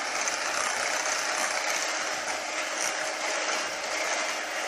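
Moulinex electric hand mixer running steadily, its beaters whisking cake batter of eggs, sugar and milk in a glass bowl.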